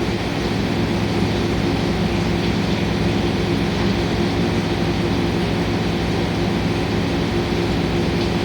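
CNC milling machine running, its spindle turning an end mill through Elmax stainless knife steel: a steady machine hum with several low tones under constant cutting noise.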